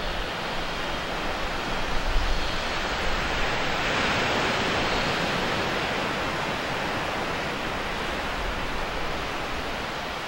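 Ocean surf: a steady hiss of waves washing ashore, swelling to its loudest about four to five seconds in and then easing off.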